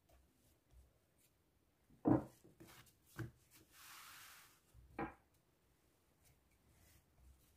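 Quiet kitchen handling sounds: three soft knocks, the loudest about two seconds in, with a brief hiss between the second and third.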